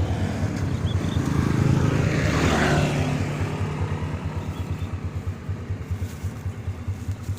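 Motorcycle engine idling with a steady, fast low throb; a louder passing-vehicle sound swells and fades about two to three seconds in.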